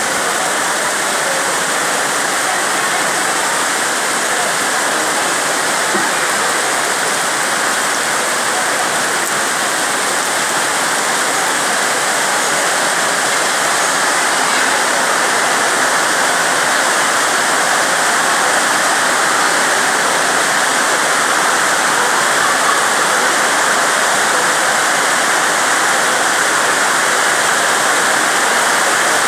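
Steady, even rush of falling or running water, unbroken throughout.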